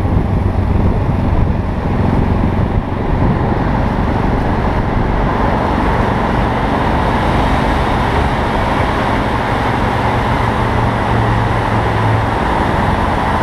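Yamaha XT660Z Ténéré's single-cylinder engine running steadily amid traffic noise, echoing inside a road tunnel.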